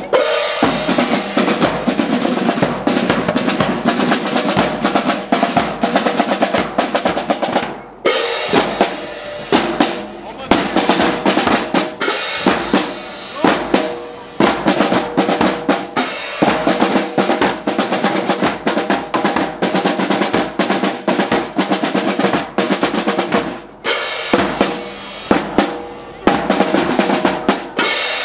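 Marching drum corps playing a street cadence on snare drums, bass drums and hand cymbals: rapid snare strokes and rolls over steady bass-drum beats. The playing breaks off briefly twice, about a third of the way in and again near the end, then starts up again.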